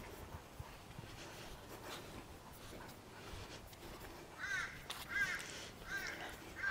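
A crow cawing: a run of four calls, about one every two-thirds of a second, starting about four seconds in.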